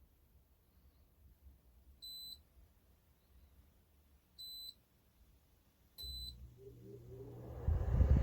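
A short high-pitched electronic beep, repeating three times about two and a half seconds apart. About six seconds in, a low hum starts and swells into a loud rumble near the end.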